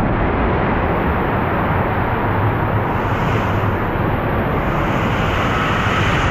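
Water rushing and sloshing around the bowl of a ProSlide BulletBOWL water slide as a rider circles it, heard close up as a loud, steady rush.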